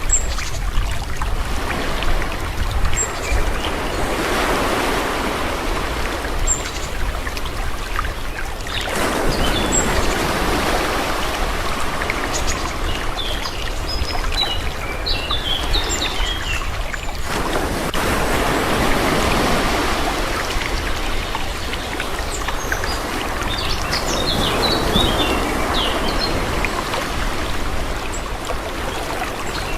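Calm sea surf washing in and out in slow swells several seconds long, with small birds chirping now and then.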